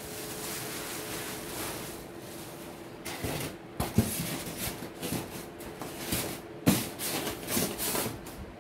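Clear plastic bag rustling as it is pulled off a portable embroidery machine, then irregular knocks and clunks as the machine and its embroidery unit are handled and set down on a wooden table, the two loudest about four and nearly seven seconds in.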